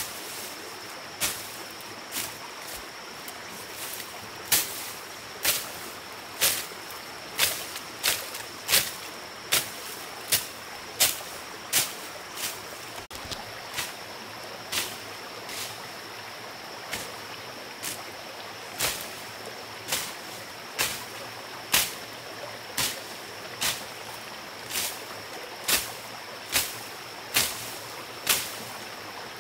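A steady run of sharp knocks, about one a second, some louder than others, over a constant rush of running water and a thin steady high tone.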